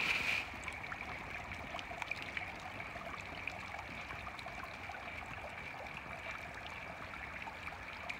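Water trickling and dripping down a wet rock face: a steady light splashing with scattered small drips, briefly louder at the very start.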